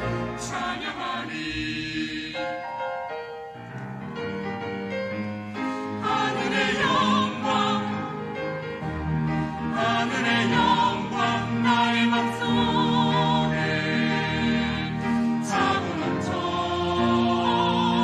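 Mixed choir singing a Korean hymn anthem in parts, accompanied by piano and pipe organ. The sound thins and drops around two to three seconds in, then swells to a fuller, louder chorus from about six seconds on.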